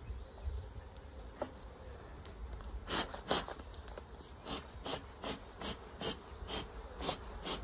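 Honeybees buzzing around an open hive. From about three seconds in, a run of regular short swishing strokes, a little over two a second, from the beekeeper working at the top of the hive box.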